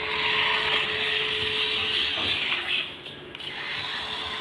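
Small electric motor and gears of a remote-control toy car whirring as it drives, louder for the first three seconds and then easing off.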